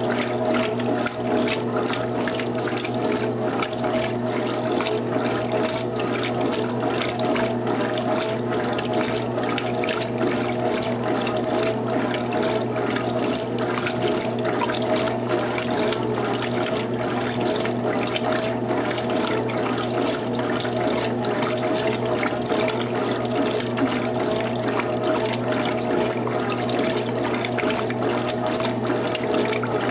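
Electrolux Top 8 top-loading washing machine in its rinse cycle: water running and splashing over a steady machine hum.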